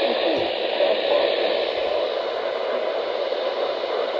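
Steady radio static: an even hiss from a radio receiver with no voice coming through clearly.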